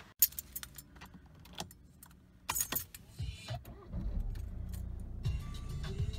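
Car keys jangling and clicking, a car door shutting with a loud clunk about two and a half seconds in, then the car's engine starting and running with a steady low hum from about four seconds.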